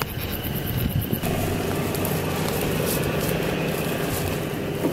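Toyota Tacoma pickup's engine running steadily as a low rumble, with a steady high trill of insects over it.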